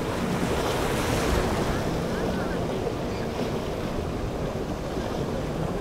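Wind buffeting the microphone over choppy open water, with waves washing and slapping steadily. A few faint short chirps rise above the rush now and then.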